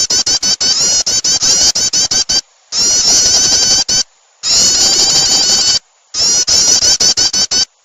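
Recorded prenjak (prinia) song used as a bird lure. It is a loud, rapid string of high chirping notes in four bouts of one to two seconds each, broken by short silent gaps.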